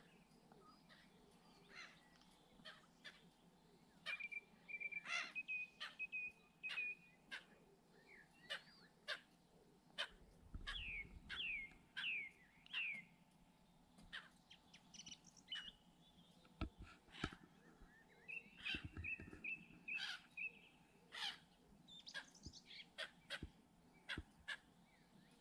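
Faint bird calls: assorted short chirps, two runs of quickly repeated high notes, and three falling whistled notes about halfway through, with a few low knocks.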